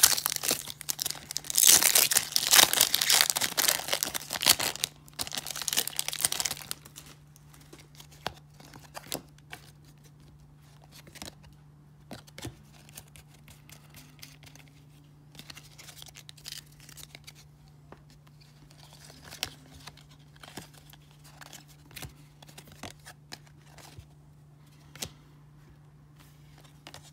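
Wrapper of a 1994 Topps baseball card wax pack being torn open and crinkled for about the first six seconds. Then come soft, scattered clicks and slides of the cardboard cards as they are flipped through one by one.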